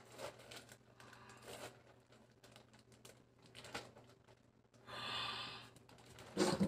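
Faint rustling and clicking of plastic zip-top freezer bags being handled and opened, with a longer hissing noise about five seconds in and a brief louder sound just before the end.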